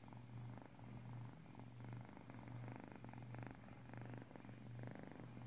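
A kitten purring quietly while being stroked, a low steady buzz that pauses and resumes with each breath.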